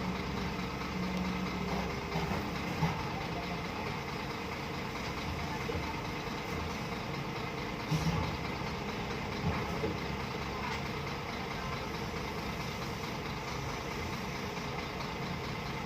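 Heavy diesel engine running steadily at low revs, with a few short clunks about three, eight and nine and a half seconds in.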